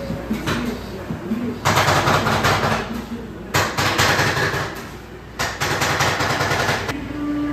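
Metal spatulas rapidly chopping ice cream on the frozen steel plate of a rolled ice cream counter: three runs of fast metallic clacking with short pauses between them.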